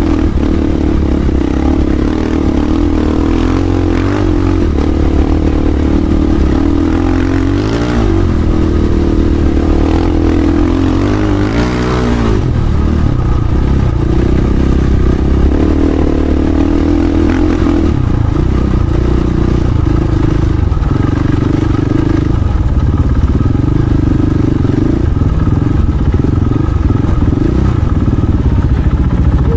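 Dirt bike engine running under throttle on sand dunes, revving up and down a few times in the first half, then holding a steadier drone.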